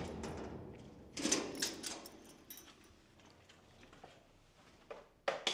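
Metal garage door being opened in an enclosed garage: a scraping rattle at the start that fades, a cluster of clanks and scrapes about a second in, and a few short knocks near the end.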